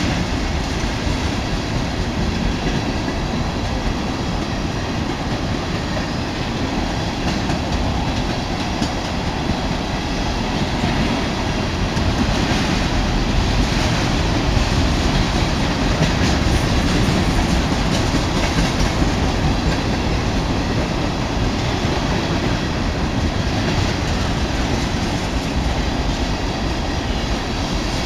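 Freight train of ethanol tank cars rolling past, the steel wheels running steadily over the rails with a constant rumble.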